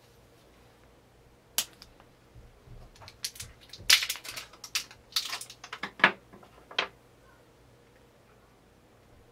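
AAA batteries being loaded into a small aluminum LED flashlight: one sharp click, then a busy run of clicks and rattles of metal and plastic handled together, stopping about seven seconds in.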